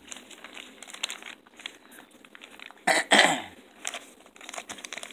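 Plastic packaging crinkling and rustling as it is handled and worked open. About three seconds in there is one short, louder sound that falls in pitch.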